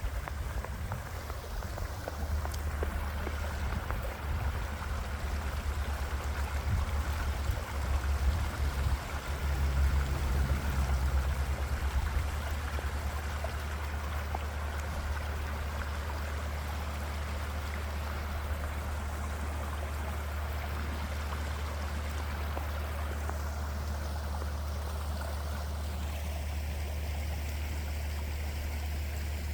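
Small creek running steadily: a continuous rush and trickle of water. Under it is a low rumble that is uneven for about the first twelve seconds and then steady.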